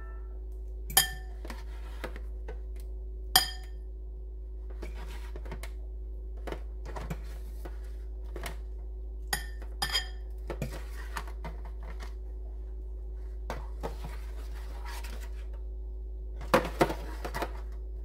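A fork clinking and tapping against a ceramic bowl and an aluminium foil pan as baked sweet potato slices are lifted across, with two ringing clinks in the first few seconds and a cluster of clinks near the end. A faint steady hum sits underneath.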